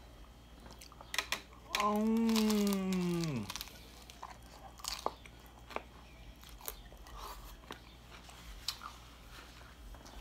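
Biting and chewing a crisp fried-corn tostada topped with shredded beef, with sharp crunches scattered through. About two seconds in, a man's voice gives one long hum that falls in pitch, the loudest sound.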